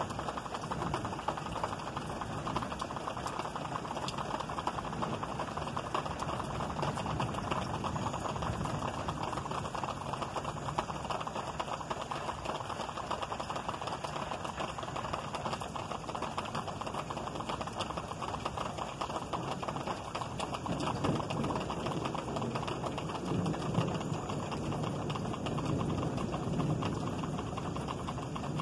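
Steady rain falling during a thunderstorm, a dense patter of drops. A low rumble grows louder in the last few seconds.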